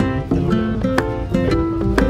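Background music: a plucked acoustic string instrument playing a melody over a steady beat, with a fresh note or accent about every half second.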